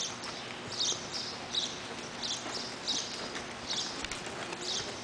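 Horses moving on indoor arena footing, with a short high squeak repeating regularly about every three-quarters of a second.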